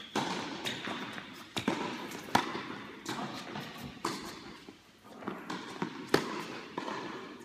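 Tennis ball struck by rackets and bouncing on a hard court during a rally, about eight sharp pops at uneven intervals, each with an echo from the large indoor tennis hall.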